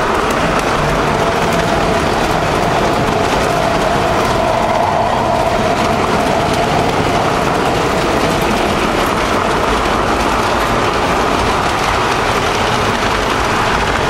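Model subway train running along three-rail model track, a steady whirring of motor and wheels heard from on board, with a faint whine that rises slightly in pitch around the middle.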